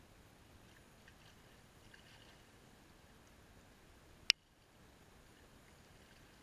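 Faint sloshing and splashing of muddy water as a person crawls through a shallow pool, with one sharp click a little after four seconds in.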